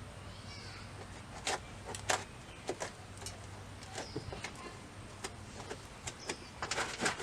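Scattered light clicks and knocks of tools and parts being handled around a car's wheel well, thickening near the end, over a low steady hum.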